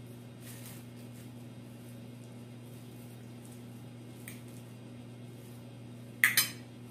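A metal spoon clinks twice in quick succession against a ceramic bowl near the end, over a steady low hum.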